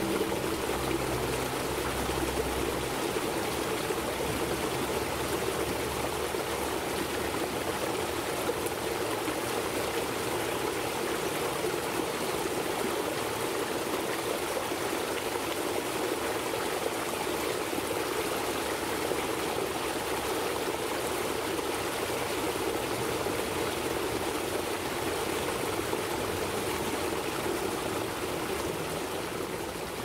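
Small waterfall in a rock-lined garden stream, water splashing and trickling over stones in a steady rush. It fades out near the end.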